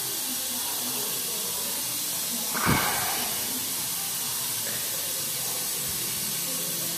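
Steady hiss throughout, with a brief knock or handling noise about two and a half seconds in.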